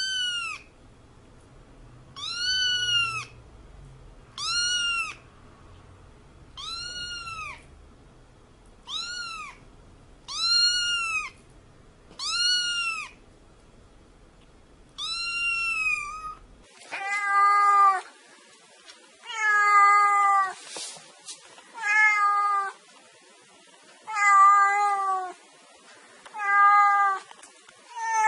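Kitten meowing repeatedly: short, high-pitched mews about every two seconds. About two thirds of the way in, the calls change to lower, longer meows at a similar pace.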